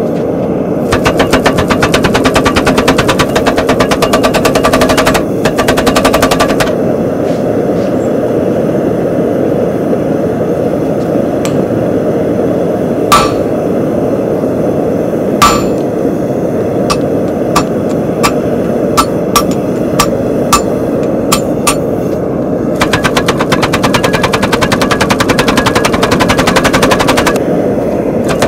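Pneumatic power hammer pounding a hot steel billet in rapid blows, stopping about five seconds in. Then a hand hammer strikes the billet on an anvil, two loud blows followed by a quicker series, over a steady roar. The power hammer starts its rapid blows again near the end.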